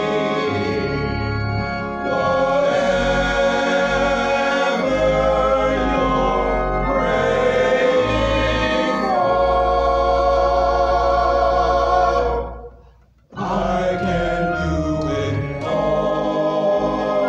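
Small male vocal ensemble singing a gospel song in harmony, accompanied by a pipe organ with sustained bass notes. The music breaks off for under a second about three-quarters of the way through, then picks up again.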